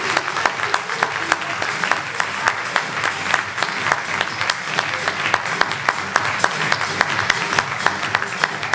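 Theatre audience and cast applauding at a curtain call, with sharp claps falling at an even beat of about four a second over the dense clapping.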